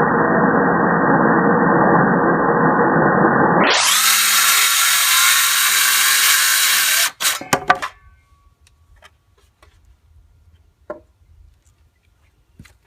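Ryobi 18-volt cordless 5.5-inch circular saw running through dense MDF board, a loud steady whine that sounds muffled for the first few seconds and then clear. It stops suddenly about seven seconds in, followed by a few clicks and faint handling ticks.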